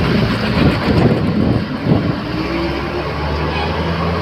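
Diesel bus engine pulling away from a stop, heard from inside the bus at an open window, with the body rattling. The engine note rises about two seconds in, then settles into a steady low drone as the bus gets under way.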